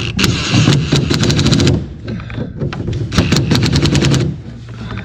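Rapid ratcheting clicks in two runs of about a second each, about ten clicks a second, over a steady low hum.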